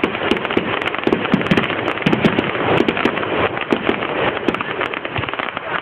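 A fireworks display: a continuous dense crackle with many sharp bangs going off in quick succession.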